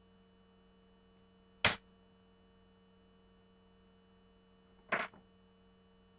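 Two short sharp clicks or taps, about three seconds apart, the second followed by a smaller one, over a faint steady electrical hum.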